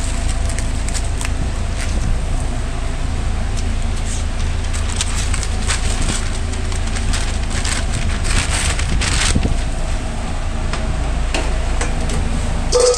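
Steady low machinery rumble of a food-truck kitchen. Over it, a brown paper takeout bag crinkles and rustles as it is folded and handled, with a cluster of crackles a few seconds in.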